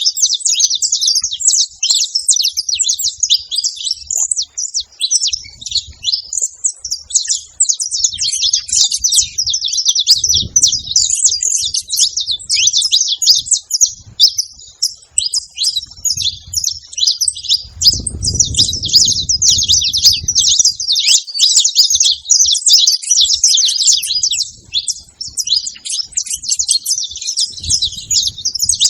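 Several saffron finches chirping and singing together in a dense, continuous chatter of quick high notes. A faint low rumble comes in about two-thirds of the way through.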